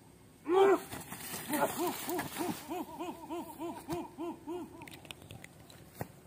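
A single hooting call, then a quick run of about ten short hoots, about three a second, that fades out. A single sharp click comes near the end.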